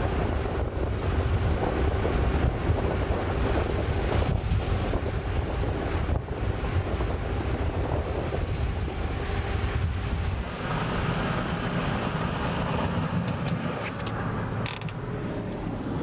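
Wind rushing over the microphone with road noise from a moving vehicle; the deep rumble eases about two-thirds of the way in.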